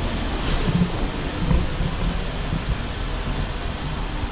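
Steady rushing noise inside an airport jet bridge as a person walks through it, with irregular low thumps and rumbles from the steps and the moving camera.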